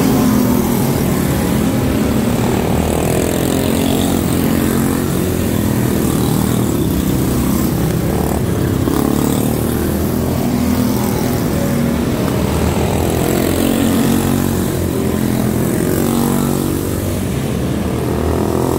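Several quarter midget race cars with single-cylinder Briggs & Stratton Animal engines running laps on a dirt oval, the engine pitch rising and falling again and again as cars come past and go around.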